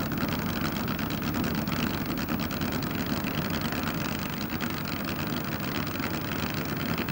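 Drag-racing motorcycle engine running steadily at low revs on the start line.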